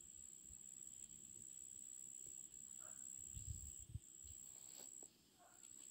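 Faint, steady high-pitched insect song with a few short breaks, and a couple of soft low thumps about three and a half seconds in.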